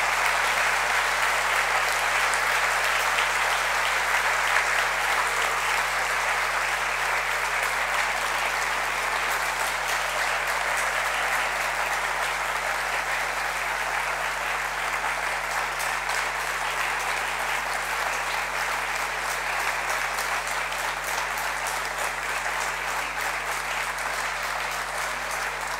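A large audience applauding steadily, the clapping easing off slightly near the end.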